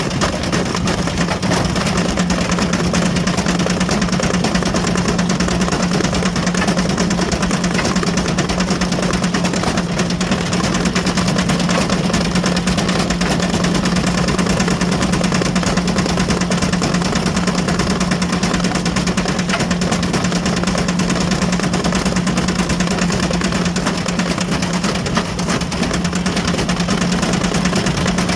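Ariston Margherita washing machine running at steady high speed with a brick loose in its drum: a constant loud hum with dense, continuous rattling and knocking over it.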